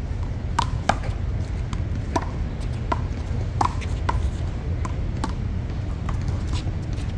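One-wall handball rally: a run of sharp, irregularly spaced smacks as the small rubber ball is struck by hand, hits the concrete wall and bounces off the pavement, over a steady low rumble.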